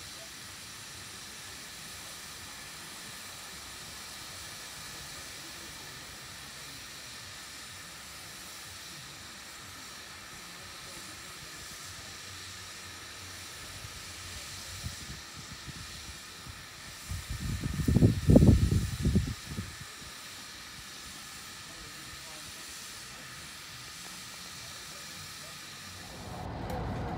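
Steady hiss of steam escaping from standing steam tank locomotives. About two thirds of the way through, a loud low rumble lasts about two seconds.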